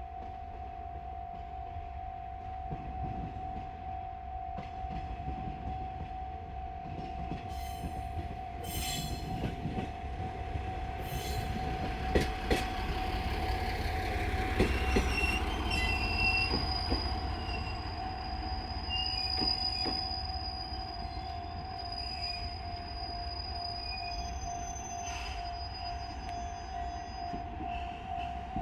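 Level-crossing warning bell ringing steadily while a JR Shikoku Series 1500 diesel railcar runs past over the crossing. The railcar's rumble builds to its loudest about halfway, with sharp wheel clacks over rail joints. A thin, high wheel squeal follows for several seconds as it moves away.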